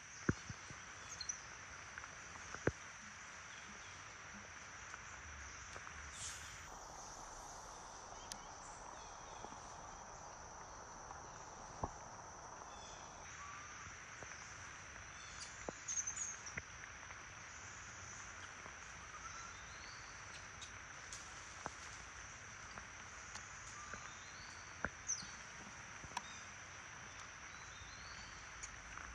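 Steady rain hiss, thicker for several seconds a little way in, with a constant high-pitched insect drone above it and scattered sharp ticks.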